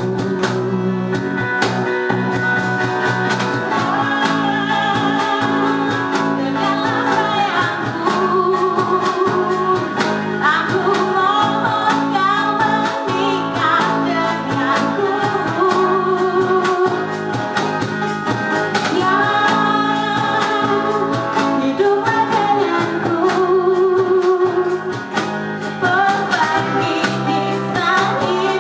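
Live band playing a pop ballad, the singer carrying the melody over acoustic guitar and electric bass.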